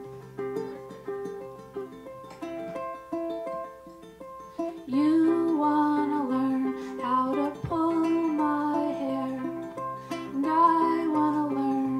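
A ukulele played on its own, joined by a singing voice about five seconds in; the voice and ukulele carry on together.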